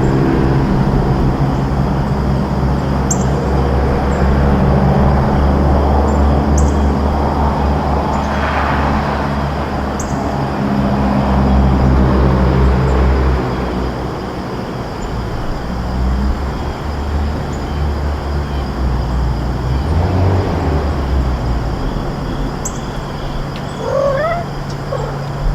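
Steady low hum of a motor vehicle's engine, strongest in the first half and easing after about thirteen seconds. Near the end come a few short rising cries from a cat.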